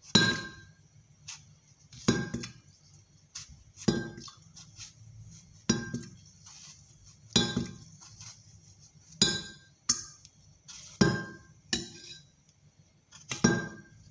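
A kitchen knife clinking against a glass jug as cucumber is sliced over it, a sharp clink about every two seconds, each ringing briefly.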